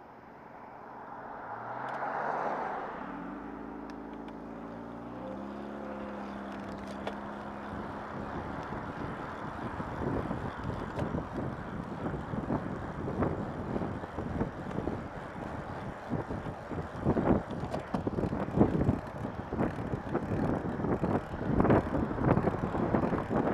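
Road traffic heard from a bicycle: a motor vehicle's engine rising in pitch as it accelerates over the first several seconds, then wind buffeting the microphone in uneven gusts that grow louder toward the end.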